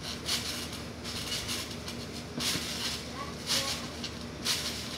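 Kids bouncing on a backyard trampoline: a swish about once a second over a faint steady hum.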